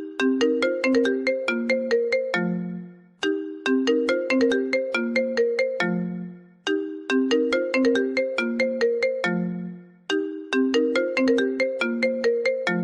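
Phone ringtone: a short plucked, marimba-like melody of about a dozen notes ending on a long low note, looping about every three and a half seconds.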